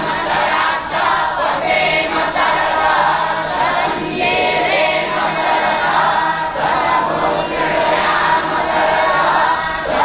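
A large group of young boys chanting Vedic mantras in unison, many voices together in a continuous recitation.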